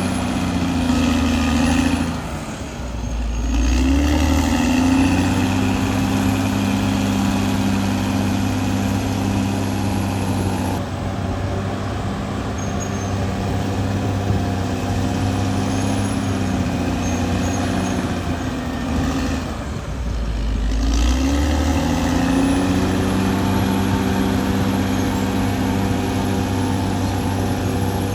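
Caterpillar D6R XL bulldozer's diesel engine running steadily under load. Twice, about two seconds in and again about twenty seconds in, the engine speed sags with a deeper rumble and then climbs back up.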